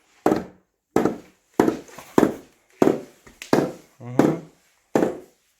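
Hammer striking small nails into a flat-pack drawer panel: about eight sharp, evenly paced taps, roughly one every two-thirds of a second.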